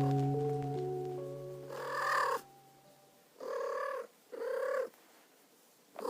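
Soft ambient music with sustained tones fading out, then a kitten meowing: short pitched calls of about half a second each, four in all, the last starting at the very end.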